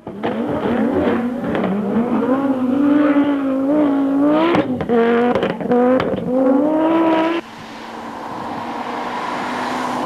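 A car engine revving hard, its pitch climbing and dropping sharply several times as it is pushed through the gears. About seven seconds in it cuts off abruptly to a quieter steady hum.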